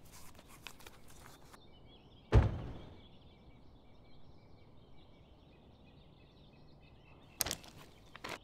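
Light rustling and clicks as a boot is laced, then a single deep thump about two seconds in that dies away over about half a second. Faint bird chirps follow over quiet outdoor background, and near the end come two footsteps on a dirt path.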